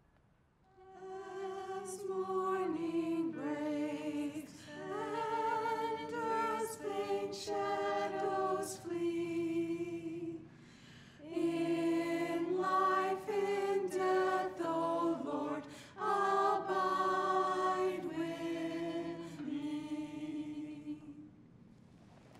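Small mixed choir singing a hymn in held notes, in two long phrases with a short breath about halfway through.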